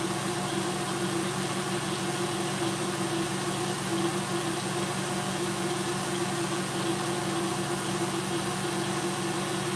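KitchenAid tilt-head stand mixer running at a steady speed, its whisk beating Italian meringue of egg whites and hot sugar syrup; an even, unchanging motor hum.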